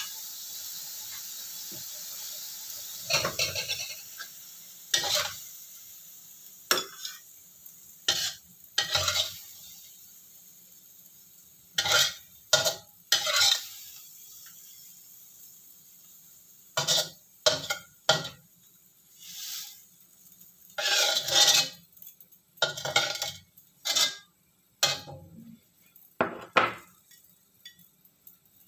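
Metal spatula scraping and knocking against a wok as stir-fried greens are scooped out, in a series of short separate strokes, over a faint sizzle that dies away during the first half.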